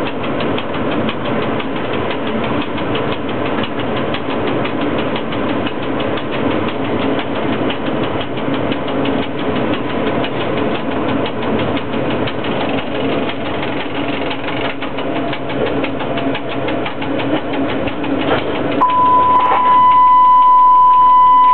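Running noise inside the cab of a ChS4T electric locomotive moving slowly, steady with a fast fine ticking and a faint steady whine. About nineteen seconds in, a loud steady whistle tone starts and holds to the end.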